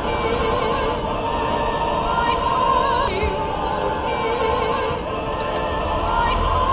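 Background music: an operatic-style singing voice with strong vibrato over musical accompaniment.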